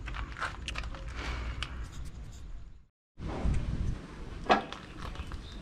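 Hand tools clicking and scraping against metal while prying at a stuck seal on a tractor's diesel fuel injection pump: scattered light clicks, with one sharper click a little after the sound drops out briefly about three seconds in.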